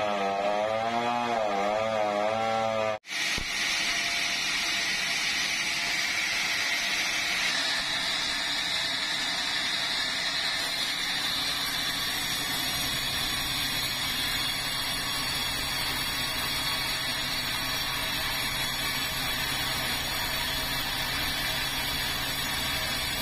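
A petrol chainsaw runs on a large log for about three seconds, its engine pitch rising and falling. After a brief break, a band sawmill takes over with a steady cutting sound as its blade saws lengthwise through a big red meranti log.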